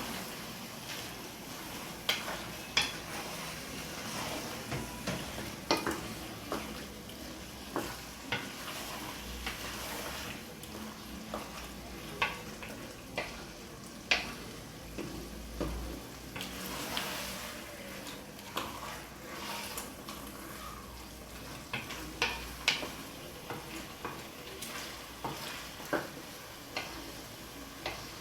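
A spoon stirring a tomato sauce with pieces of cow skin in a cooking pot, knocking sharply against the pot at irregular intervals about once a second. The sauce sizzles steadily underneath.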